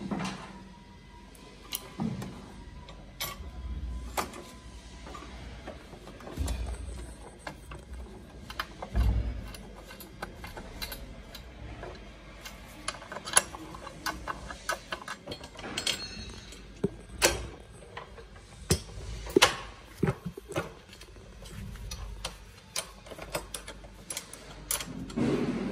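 Metal clinks and knocks of a wrench and bolts against a steel pannier rack as it is fitted and bolted on, with a quick run of clicks in the middle as a nut is turned with the wrench.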